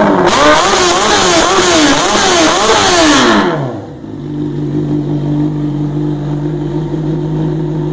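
Honda CBR 600F inline-four engine breathing through a 4-into-1 sport exhaust with the catalytic converter removed. It is revved in quick throttle blips, about two a second, for the first three and a half seconds, then drops back to a steady idle. The exhaust runs loud.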